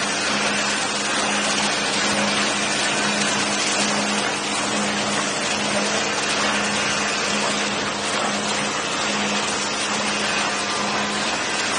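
Horizontal ribbon mixer running: its helical ribbon agitator churns and splashes liquid in the open steel trough, giving a steady rushing noise. Under it the drive motor gives a low hum that swells and fades in a regular beat.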